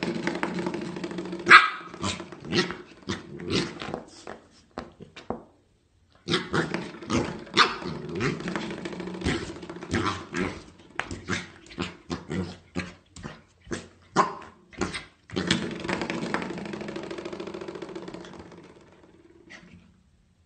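Corgi puppy barking and yipping over and over at a spring door stopper, whose twanging buzz sounds in long stretches and dies away slowly near the end.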